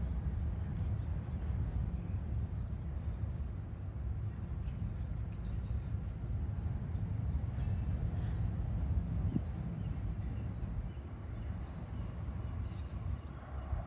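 Trackside ambience: a steady low rumble with small birds chirping throughout. An approaching West Midlands Metro tram becomes audible as a rising hum near the end.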